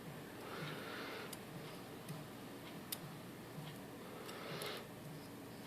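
Faint, scattered small clicks and ticks of metal tools and lock parts being worked at during the disassembly of an Assa Guideline lock cylinder, a handful of irregularly spaced taps.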